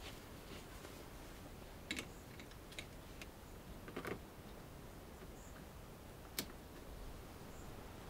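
A handful of faint, short clicks and taps scattered over a quiet background, with a sharper click near the end.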